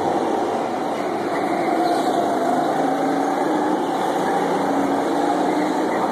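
Go-kart engines running on a track, a steady drone whose pitch wavers a little.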